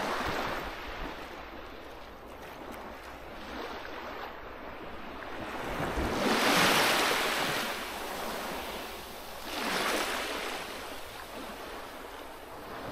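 Small sea waves washing onto a pebble shore, as a steady hiss with two louder washes, about halfway through and again near the ten-second mark.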